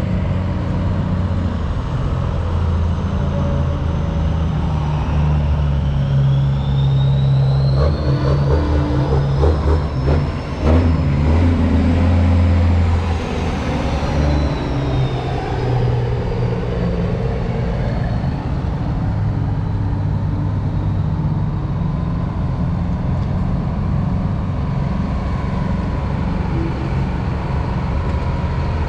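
Semi trucks' diesel engines running as the rigs pull away and drive past; one passes closest about ten seconds in, with a high whine that rises and then falls as it goes by.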